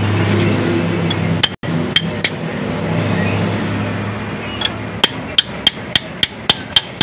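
Hammer striking a steel punch to drive a new axle oil seal into a Toyota Tamaraw FX's rear axle housing, a little at a time: a few sharp ringing metal taps, then from about five seconds in a steady run of taps, about three a second. A steady low hum runs under the first half and fades out.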